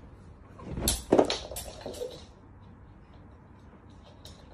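A short flurry of knocks and clatter about a second in, dying away a second later.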